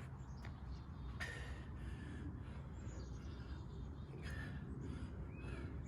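Steady outdoor background noise with a few short bird chirps, and a person breathing hard in several strong breaths.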